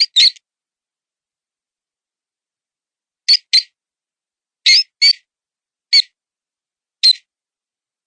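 Mouse distress squeaks, the sound of a wounded mouse used as a predator-calling lure. There are eight short, high-pitched squeaks in pairs and singles, separated by silent gaps of a second or more.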